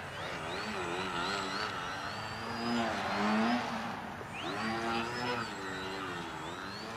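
Electric motor and propeller of a Twisted Hobbys Crack Yak foam 3D aerobatic plane. The pitch rises and falls continuously as the throttle is worked through hovers and low manoeuvres, with a high whine moving along with it.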